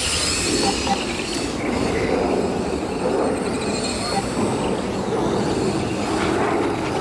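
Several electric brushless Tamiya M05 Mini RC cars racing round the track: their motors make high wavering whines that rise and fall as the cars speed up and brake, over a steady rush of tyre and track noise.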